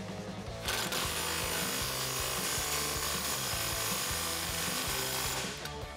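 Milwaukee cordless impact wrench hammering a nut down onto the bolt through the rear track bar bracket. It starts under a second in and stops shortly before the end.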